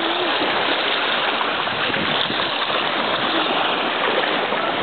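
Shallow seawater sloshing and lapping right at the microphone, which is held at the surface among small breaking waves: a steady rushing wash.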